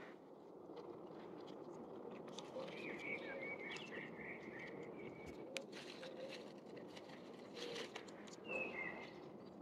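Birds chirping faintly in short runs of twittering calls over a steady low background noise, with a single sharp click about five and a half seconds in.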